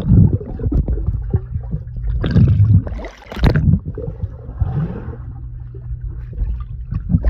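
Muffled underwater rush and rumble of pool water heard through a submerged camera, with several louder surges of bubbles and churning as swimmers kick past close by.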